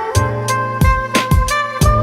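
Background music with a steady drum beat under held, sustained melody notes.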